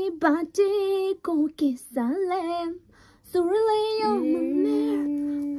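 A woman singing in short phrases of long held notes, with a brief pause in the middle. About four seconds in, a second, lower note joins and is held steadily under her voice.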